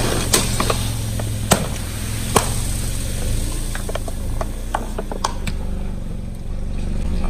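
Plastic soda bottles crackling and clicking as a car tyre crushes them: scattered sharp cracks over the low, steady hum of the car's engine.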